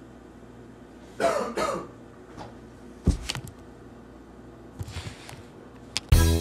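A brief cough-like vocal sound about a second in, then a sharp knock about three seconds in, with music starting near the end.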